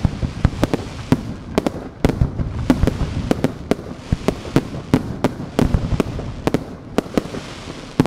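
A fireworks barrage: aerial shells bursting overhead in quick succession, sharp bangs about three a second at an uneven pace.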